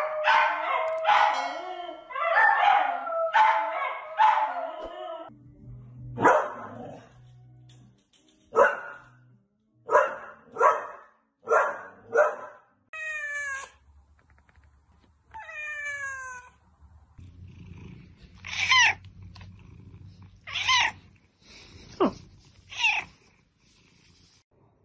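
Pet dogs barking and howling: a dense run of calls at first, then a terrier's sharp single barks about one a second, then a couple of falling yelps. Near the end come several short cat meows.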